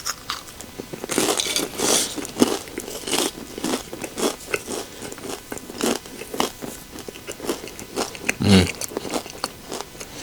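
Close-up crunchy chewing of tortilla chips (microwave nachos), with irregular crisp crunches as the chips break between the teeth. A short hum of a voice about eight and a half seconds in.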